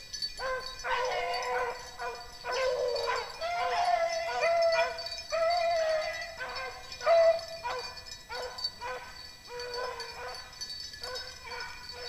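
Rabbit hounds baying: short barks repeated over and over, drawn out into a few longer held bawls in the middle. This is the voice of hounds running a rabbit's trail.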